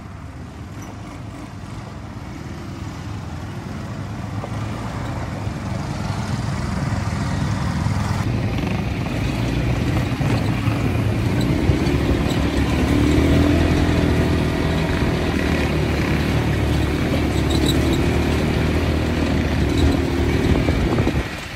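Engines of a group of ATV quad bikes running as they ride in a line along a dirt track, getting louder over the first several seconds and then holding steady.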